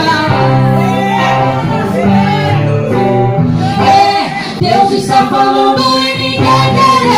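Gospel song: male and female voices singing long held notes together over musical accompaniment.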